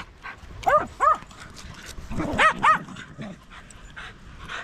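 A dog barking: two quick pairs of short barks, the first pair about a second in and the second about two and a half seconds in.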